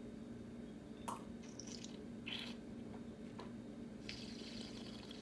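Faint sipping and mouth sounds with a few soft clicks as a cocktail is tasted from a glass, over a steady low room hum, with a soft hiss about four seconds in.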